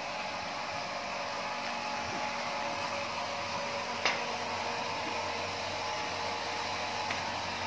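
A steady, fan-like mechanical whir with faint humming tones, and a single sharp click about four seconds in.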